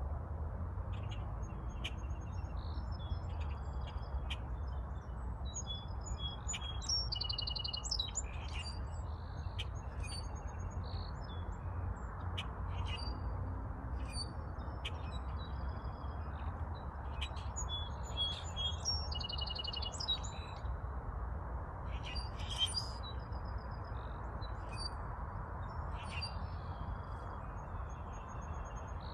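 Many birds chirping and calling, short chirps and trills coming every second or so, over a steady rush of wind.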